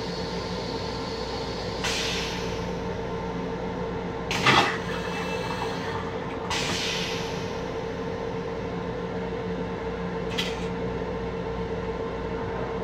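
Steady hum of an M7 railcar carrying through its restroom, with short water hisses and a brief clatter from the stainless-steel toilet as it flushes, the clatter about four and a half seconds in being the loudest.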